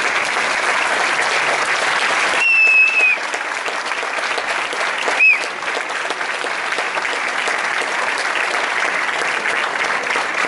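Audience applauding steadily. Two short high whistles cut through the clapping: one held for nearly a second about two and a half seconds in, and a briefer one that rises and falls about five seconds in.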